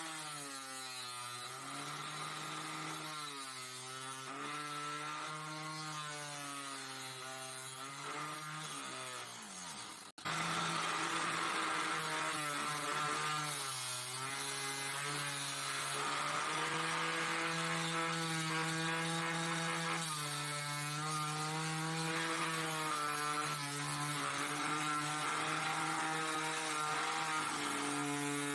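775 DC motor disc sander running with a steady hum, its pitch sagging and recovering again and again as the motor slows under load. It cuts out abruptly about ten seconds in and resumes slightly louder.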